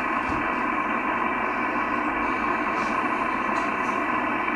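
Steady static hiss from a Yaesu FT-1000MP HF transceiver's speaker, tuned to an empty 11-metre channel: band noise with no station transmitting.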